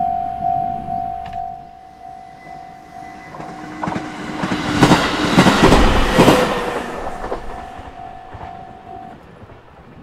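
Japanese level-crossing warning bell ringing in a steady ding-ding rhythm, about two strokes a second; it drops in level a little over a second in and stops near the end. An electric commuter train passes over the crossing, its wheels clattering over the rail joints, and is loudest around the middle.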